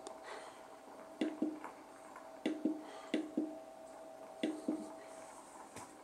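Water bubbling in an Interbiz IB-601B steam humidifier: short glugging pops in pairs, four times, over a faint steady hum.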